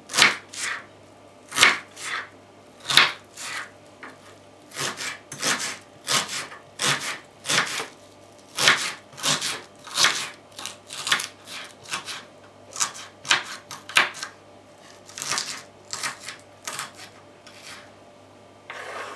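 Kitchen knife chopping onion on a wooden cutting board: short sharp knocks of the blade hitting the board, irregular, about one to three a second with brief pauses, and a longer scrape near the end.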